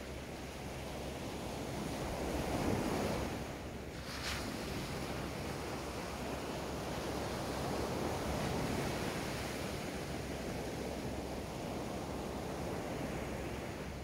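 Small surf breaking and washing up a sandy beach. The wash swells twice, about three seconds in and again near nine seconds, with a short sharp hiss about four seconds in.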